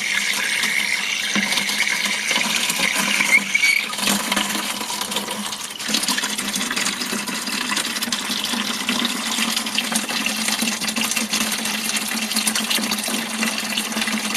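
Rain water running from a 50-gallon rain barrel into a small bucket, a steady pour as the bucket fills.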